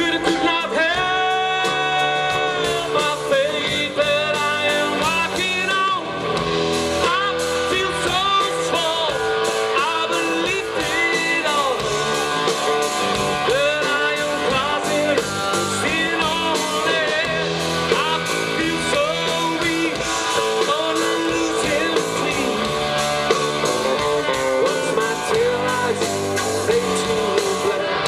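A rock-and-roll band playing: guitar and singing over a steady backing, with bending, sliding notes in the lead line.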